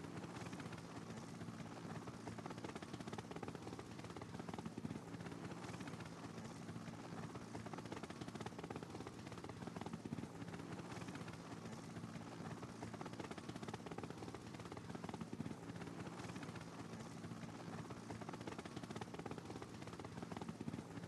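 Steady low engine drone with an even hiss over it, from the motor vehicles following the bike race.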